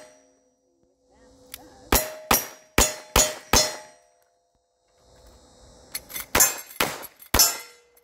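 Five quick revolver shots about half a second apart, each followed by the brief ring of a hit steel target. After a pause of about two seconds, a string of four or five rifle shots at a similar pace, again with steel targets ringing.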